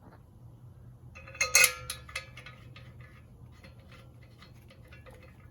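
Steel hub bolts clinking and rattling against each other and the metal knuckle as they are handled, with one loud ringing clink about a second and a half in followed by a few lighter ticks.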